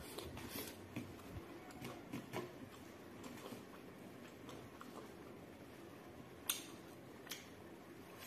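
Quiet eating sounds of a person eating by hand: chewing and soft mouth and finger clicks, scattered irregularly, with one sharper click about six and a half seconds in and a smaller one just after.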